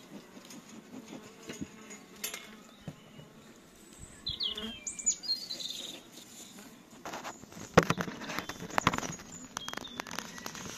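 Honeybees buzzing around an opened hive, with a few short bird chirps. About two-thirds of the way through comes a cluster of sharp knocks and rustles, the loudest sounds here.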